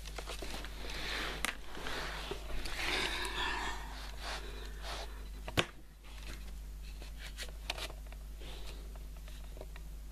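Handling noise: rustling and scattered clicks, with one sharp click about five and a half seconds in, over a steady low hum.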